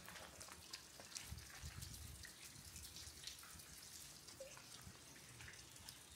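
Faint water dripping: scattered, irregular small drips and ticks, with a few brief pitched plinks.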